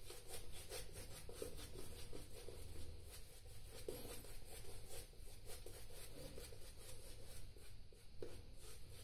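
Shaving brush swishing lather over the face in quick back-and-forth strokes: a faint, rhythmic bristle rubbing.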